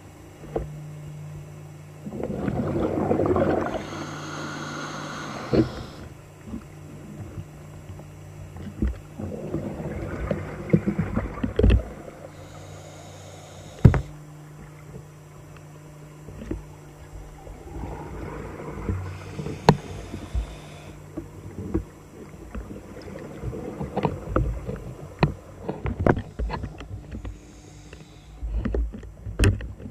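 Underwater scuba recording: a diver's exhaled bubbles from the regulator rush past in swells every several seconds over a steady low hum, with scattered sharp clicks and knocks.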